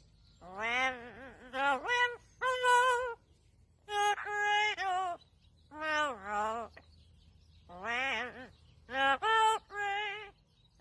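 A parrot making a series of about eight wavering, pitched calls with short pauses between them, some sliding upward at the start.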